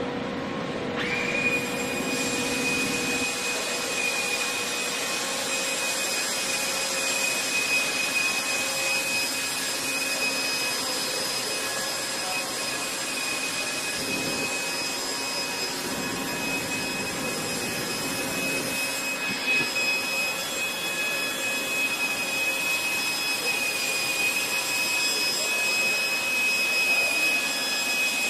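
Doosan Puma 700XLM CNC lathe's turret carriage running at rapid traverse along the bed. A steady high-pitched machine whine over a rushing hiss sets in about a second in and holds level.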